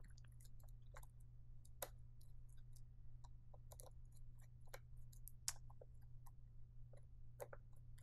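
Faint, irregular small clicks as the screw-fastened cover is worked off the safety light curtain's intelligent tab, over a low steady hum.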